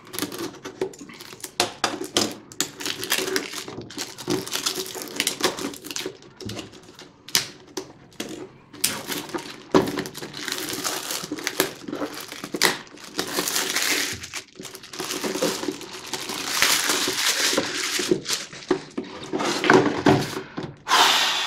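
Plastic shrink wrap being cut and peeled off a cardboard CPU retail box, crackling and crinkling with many quick irregular clicks.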